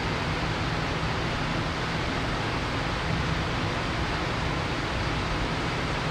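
Steady, unchanging rushing noise with a low rumble underneath, with no distinct events.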